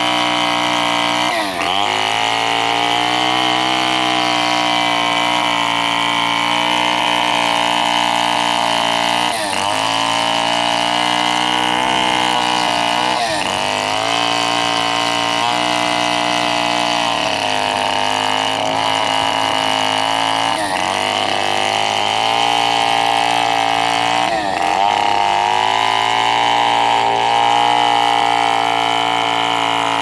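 Stihl two-stroke chainsaw running near full throttle as it cuts through a thick block of stump wood. Its engine note dips briefly and recovers about five times as the chain loads in the cut.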